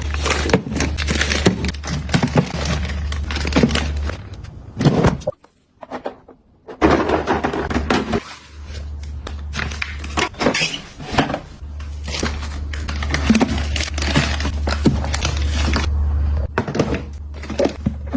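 Household items being handled and set down, making repeated irregular knocks, taps and clatter with some rustling. A steady low hum sits under much of it, breaking off twice and coming back.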